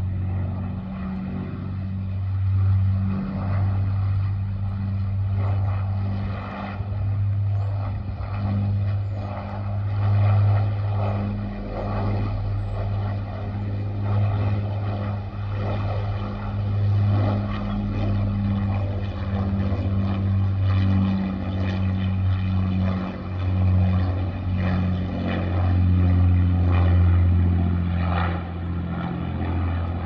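Avro Lancaster's four Rolls-Royce Merlin V12 engines in flight, a deep, steady propeller drone that swells and eases several times as the bomber circles.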